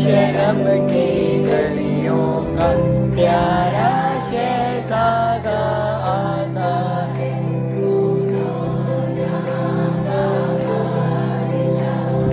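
A children's choir singing a hymn together, with steady held low notes under the melody.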